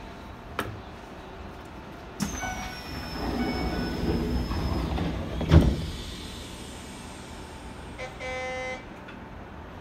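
Commuter train's doors closing at a station stop. A sudden rush with a high, slightly falling whine starts about two seconds in, and a loud thud comes at about five and a half seconds as the doors shut. A short buzzer tone sounds near the end.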